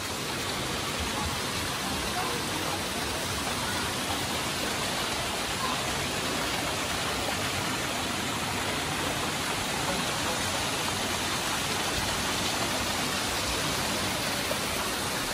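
Running water rushing steadily, an even noise that does not change or break.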